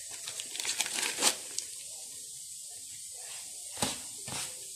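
A paper sachet of baking powder crinkling as it is tipped out over a bowl of semolina, then hands rubbing the crumbly semolina, oil and butter mixture, with a few scratchy rustles near the end.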